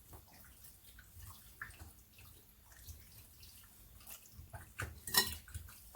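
Faint wet clicks and squelches of raw chicken being mixed in its marinade in a bowl, with a louder clatter about five seconds in.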